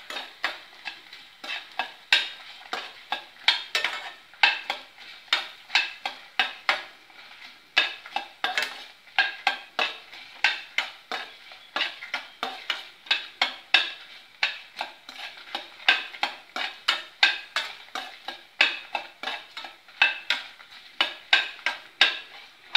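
A spatula scraping and clicking against a stainless steel kadai as it stirs coriander seeds and dried red chillies roasting in a little oil: a quick, even run of metallic scrapes, about two or three a second.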